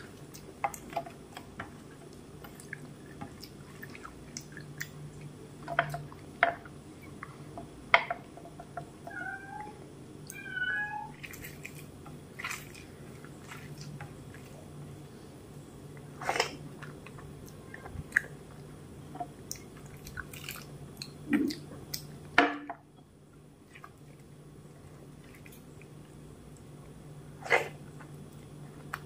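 Eating by hand: fingers squishing and mixing milk-soaked rice in a steel plate, with wet mouth smacks and sharp clicks every few seconds. About ten seconds in come a few short, high-pitched calls.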